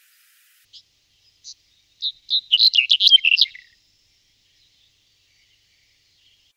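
Black-headed bunting singing one song: two short separate high notes, then a fast jumbled run of notes lasting about a second and a half.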